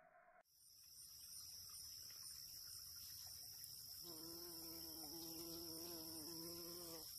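Bumblebee buzzing with a slightly wavering pitch, from about four seconds in until near the end, over a steady high-pitched trill of meadow insects that starts about half a second in.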